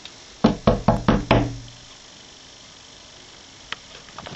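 Five quick knocks in a row, about four a second, with a low ringing that dies away half a second after the last one.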